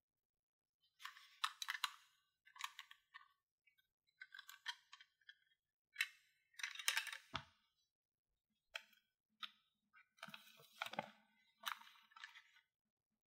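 Small plastic toy pieces and their packaging being handled: runs of short crinkles, clicks and clinks in about eight clusters with brief silent pauses between, and a low knock about seven seconds in as something is set down.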